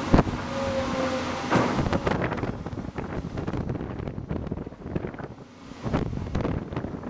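Tracked excavator working, its diesel engine running with a held hydraulic whine. Several sharp clanks from the bucket and arm, the loudest just after the start.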